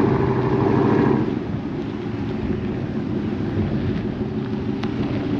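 1996 Dodge Ram 2500 pickup's engine running as the truck drives across open pavement. It is louder for about the first second, then settles to a steady lower drone.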